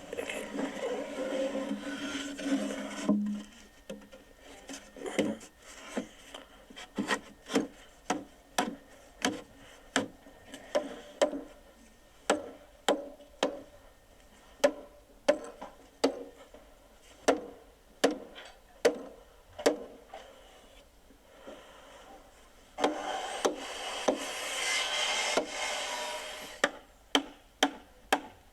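Building work: a hammer striking in a long run of sharp blows, about one to two a second. There is a spell of sawing at the start and another about 23 seconds in.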